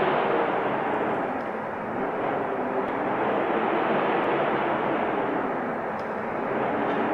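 Wind blowing, a steady rushing noise that eases a little and swells again in slow gusts.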